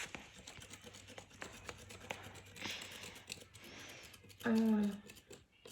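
Toy packaging being handled and opened: scattered small clicks, rustling and tearing. A short voiced sound comes about four and a half seconds in.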